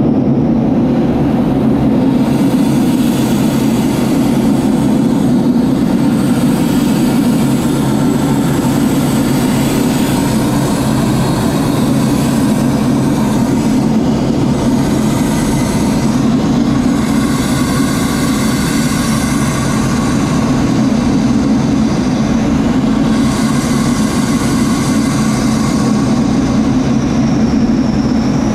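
Steady in-flight drone of an aircraft engine and rushing air heard inside a chase plane's cockpit, with a faint high whine on top.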